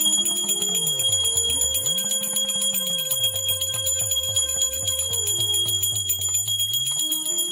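A small puja bell (ghanti) rung rapidly and continuously, its strokes coming fast and even over a steady high ring. A slow, low melodic tone sustains and glides underneath.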